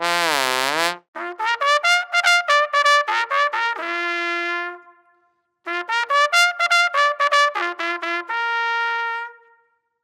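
A trumpet fanfare sound effect: a quick run of short staccato notes ending on a held note, played twice, the second time ending on a higher held note. Before it, the tail of a wobbling, wavering tone from the previous effect.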